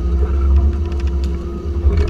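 Twin Yamaha 350 V8 four-stroke outboards running steadily with the boat under way: a deep, steady rumble with a constant hum over it, and water churning behind the stern.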